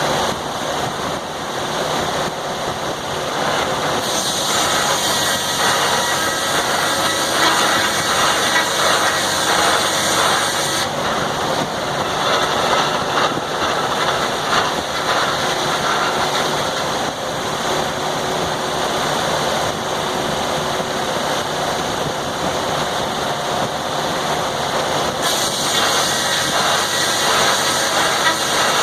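Circular sawmill running, its saw blade and carriage drive sawing a log. The sound grows brighter and harsher from about 4 to 11 seconds in and again near the end, as the blade works through the cut.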